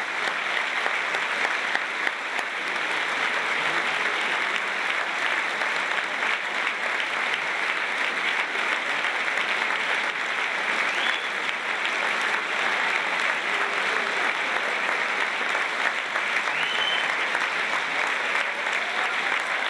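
Large theatre audience applauding steadily: many hands clapping at once at the curtain call.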